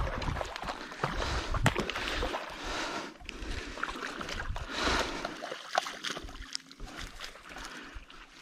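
A freshly caught barramundi thrashing on the wet sand and in the shallows at the water's edge as it is landed by hand: several sharp slaps with bursts of splashing.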